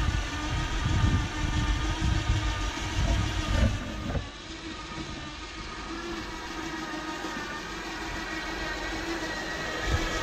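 Electric-converted MTD lawn tractor driving on its 24 V motor and speed controller: a steady whine with several pitches that rises slightly near the end, over a low rumble that is strongest in the first four seconds.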